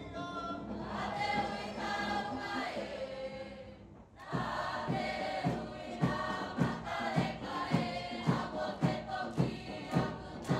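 A large group singing together in held, chorus-like lines. About four seconds in, the singing drops away briefly, then resumes over a steady drum beat of about two strokes a second.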